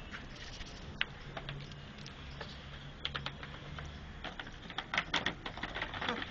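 Black Labrador puppies scuffling at play, claws clicking and scratching on a hard floor: scattered ticks at first, thickening into a quick flurry in the second half, over a faint steady low hum.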